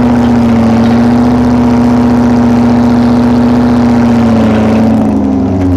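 Holden 253 V8 engine in a grey Ferguson tractor, running loud and steady under load while working the ground. Near the end its note dips lower.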